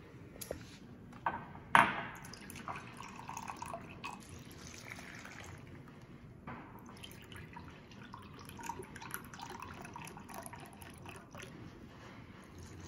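Beef broth poured from a glass measuring cup into an Instant Pot's stainless inner pot over potatoes and carrots, trickling and splashing steadily. A sharp knock comes about two seconds in.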